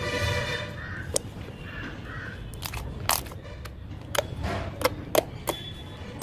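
Slime being handled and squeezed, giving a string of sharp, irregular pops and clicks with a short squeak at the start.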